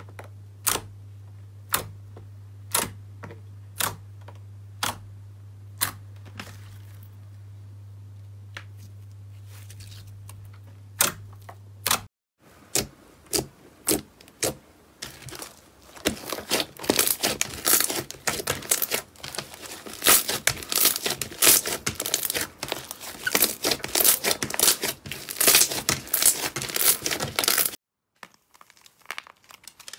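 Slime pressed and squeezed by hand. For the first twelve seconds there are single sticky pops about once a second over a low steady hum. After that the hum stops and the sound becomes dense crackling and popping as a glossy slime is kneaded and poked.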